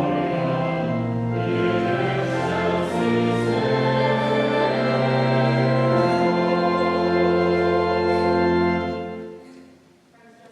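Voices singing with organ accompaniment, ending on a long held chord that fades away about nine seconds in.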